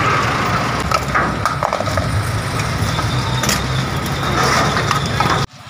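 A large truck's engine idling amid street traffic, with a few knocks and clanks as a motorcycle is lifted onto the truck's flatbed. The sound cuts off suddenly near the end.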